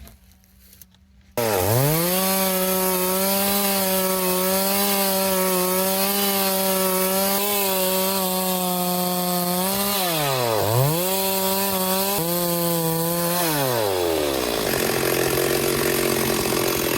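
Two-stroke chainsaw at full throttle, cutting through Conacaste (guanacaste) wood. It starts abruptly about a second in and runs at steady high revs. The revs dip and pick up again about ten seconds in, then fall back toward idle near the end.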